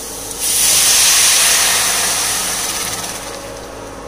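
Water poured into a hot pressure pan of roasted wheat rava and vegetables, hissing and sizzling loudly as it hits the hot pan. The hiss starts suddenly about half a second in and fades away slowly over the next few seconds.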